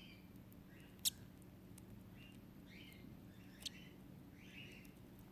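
Faint high cheeps of a hatching lutino cockatiel chick, about one short peep a second. A sharp click about a second in is the loudest sound, with a smaller one a little after the middle.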